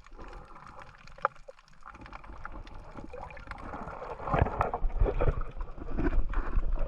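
Water sloshing and gurgling around a snorkeler's camera. It is faint with scattered small clicks at first and grows louder and more splashy about four seconds in.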